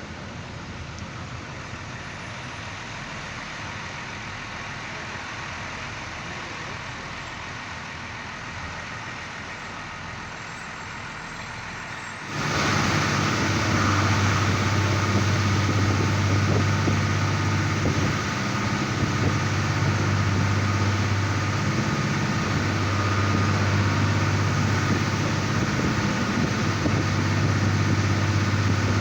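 ITIN ADe diesel railcar on the move, heard from its open window: a quieter steady running rumble, then about twelve seconds in an abrupt step up to a louder steady diesel engine drone with a low hum.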